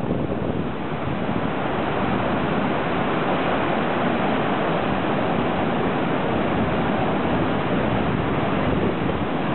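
Rough surf breaking and washing in, a steady rush of noise, with wind on the microphone.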